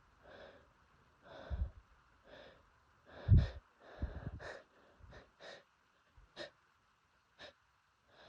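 A person's short nasal breaths, sniffs and snorts, about nine in all, the loudest about three and a half seconds in. This is a nose congested by pollen allergy, in the middle of a sneezing fit.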